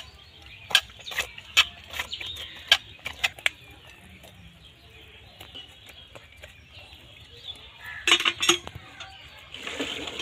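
Sharp scrapes and taps of a knife blade against a stone while cleaning small fish, a few strokes a second at first, then sparser, with a quick cluster of strokes near the end.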